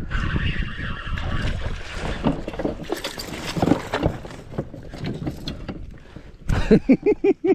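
Water splashing and knocks against an inflatable boat as a small hooked pike is brought in. Several short squeaks come near the end.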